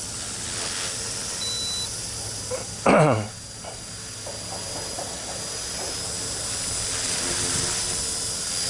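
Blade 130X micro RC helicopter in flight: the steady high whine of its electric motor and 10-tooth pinion gearing over the hiss of its rotors. About three seconds in, a brief loud cry falling in pitch cuts over it.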